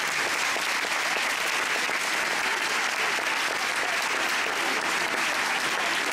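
Audience applauding, a steady, sustained clapping.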